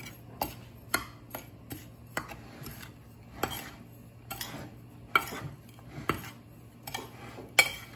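Metal spoon scraping and clinking against a ceramic plate while stirring dry breadcrumbs and spices, in quick irregular strokes about twice a second, with a sharper clink near the end.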